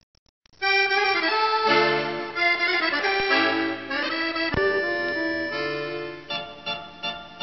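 Accordion music, starting abruptly about half a second in after near silence and carrying a held, chord-like melody.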